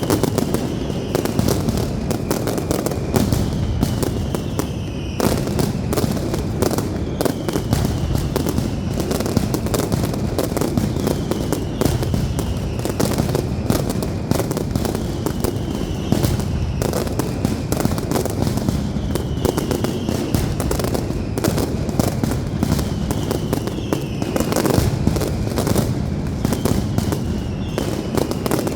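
Aerial fireworks display (a Valencian castillo) firing continuously: a dense, unbroken run of bangs and crackling bursts, with a falling whistle about every two seconds.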